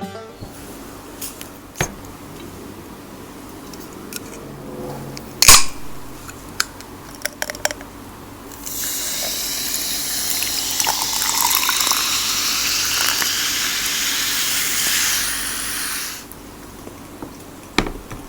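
Liquid poured into a glass for about seven seconds, starting about nine seconds in, with a faint rising tone as the glass fills. Before it, scattered clicks and one loud knock about five seconds in, and another knock near the end.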